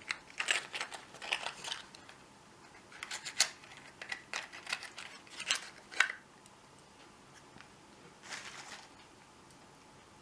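Small padlock and its cardboard packaging being handled: bursts of light clicks and rustles through the first six seconds, then a short rustle about eight and a half seconds in.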